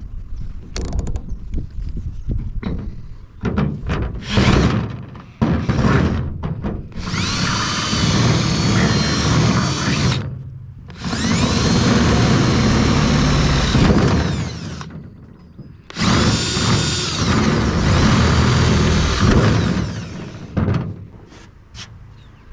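Electric drill with a 7/16-inch bit enlarging the mounting holes of an air horn: some clicks and knocks of handling, then three long runs of several seconds each, the motor spinning up at the start of each and winding down at the end.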